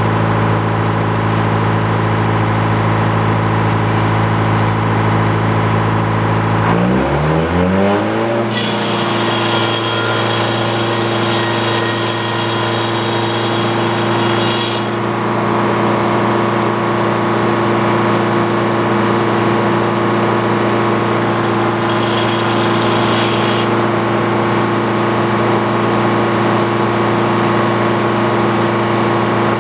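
Car engine running steadily, then revving up about seven seconds in and holding at the higher speed, with a hiss joining for several seconds after the rise.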